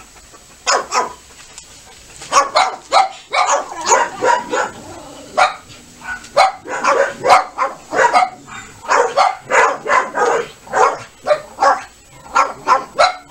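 A dog barking over and over in quick runs of loud barks, starting under a second in, with a few higher yips among them.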